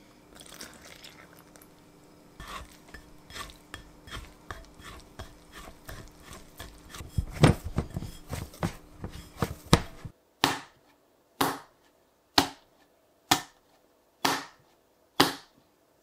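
Hands mixing wet bread dough in a glass bowl: irregular sticky squelches and scrapes against the glass, loudest about halfway through. Then six sharp, evenly spaced hits about a second apart.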